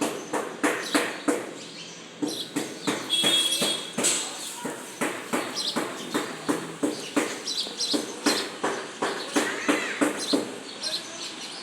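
A series of sharp knocks, roughly two a second and uneven, with a short bird chirp about three seconds in.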